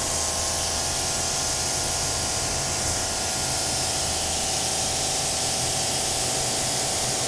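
Pressure washer spraying a fan of water onto a car's door panel during the final rinse: a steady hiss of spray over the steady hum of the washer's pump.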